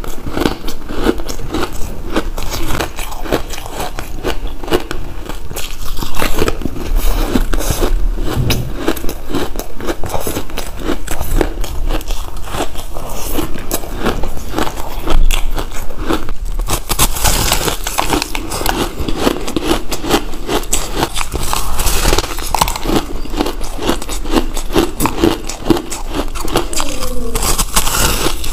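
Crumbly purple ice being bitten and chewed, with dense crunching and crackling that goes on without a break.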